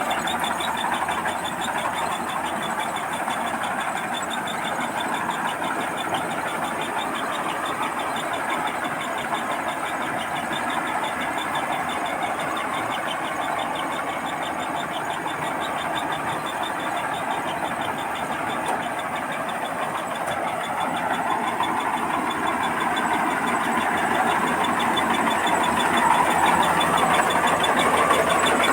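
Combine harvester running steadily, its engine and machinery making a continuous mechanical noise that grows louder over the last several seconds.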